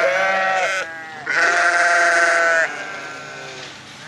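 Sheep bleating, several long wavering calls one after another; the loudest starts about a second in and holds for over a second.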